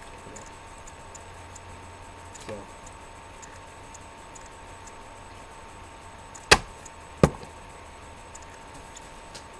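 Two sharp knocks about two-thirds of a second apart, over a faint steady hum.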